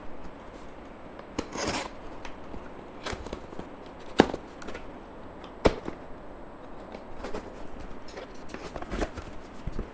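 Cardboard box being opened with a kitchen knife: the blade scraping and slitting along the packing tape, with hands rubbing on the cardboard and scattered light taps. The two sharpest taps come about four seconds in and again a second and a half later.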